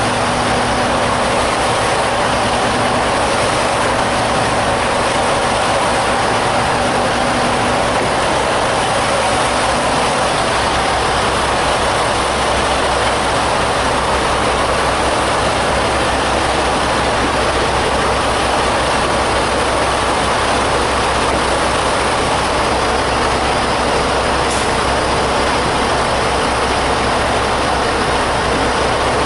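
Diesel truck engine idling steadily, with a constant rushing hiss over the low rumble.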